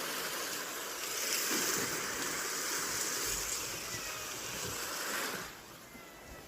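Steady rush of rain mixed with white noise, an even hiss with no distinct drops; it falls suddenly to a quieter, thinner hiss about five and a half seconds in.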